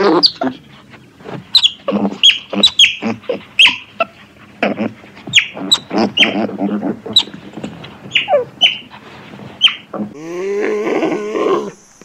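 Otters chirping and squeaking: a quick run of short, high calls that sweep downward. Near the end, a longer, lower call with a wavering pitch takes over.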